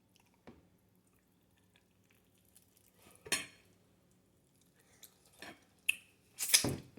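Cutlery clinking and scraping against a dish while eating: scattered short clicks a second or two apart, with a louder cluster near the end.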